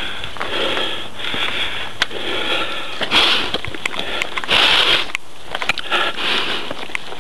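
Hard, rhythmic breathing close to the microphone, about one breath a second, over sharp clicks and rattles from a mountain bike jolting down a rocky trail.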